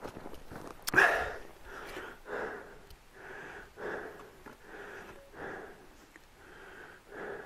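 Snowshoe footsteps crunching in packed snow at a steady downhill walking pace, about two steps a second, with a louder crunch about a second in.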